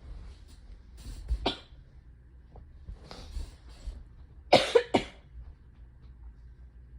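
A woman with a cold and fever coughing: a short cough about a second and a half in, then two loud coughs in quick succession about halfway through.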